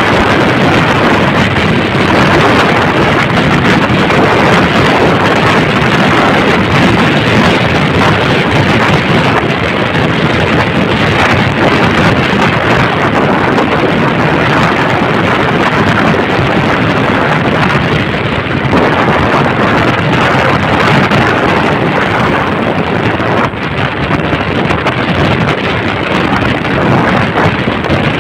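Loud, steady wind noise buffeting the microphone of a moving vehicle on the road.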